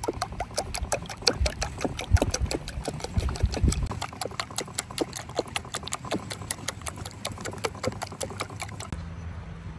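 Raw eggs being beaten with a wooden utensil in a carved wooden bowl: quick, rhythmic wooden clicks against the bowl, about five a second, with the wet slap of the egg. The beating stops about nine seconds in.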